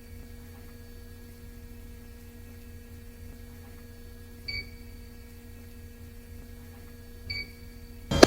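A steady low electrical hum with two short high beeps, about four and a half seconds in and again about seven seconds in; a sudden loud clatter starts right at the end.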